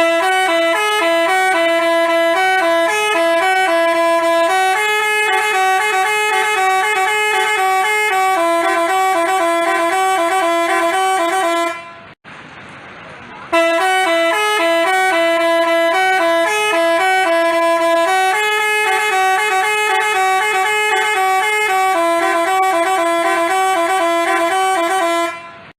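Telolet Basuri multi-tone bus horn playing a quick stepping melody of several notes for about twelve seconds. It stops briefly a little after halfway, then plays the same tune again.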